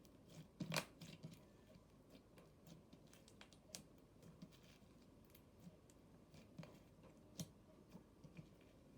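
Thick, glossy slime being stretched and squished by hand, giving off scattered soft clicks and pops as small air pockets burst, the loudest about a second in and another near the end.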